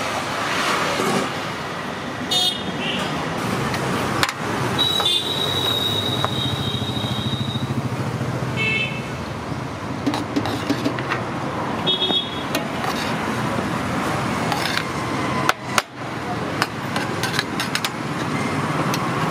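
Road traffic with vehicle horns honking: several short toots and one longer horn held for about two seconds, over a steady noise of passing engines.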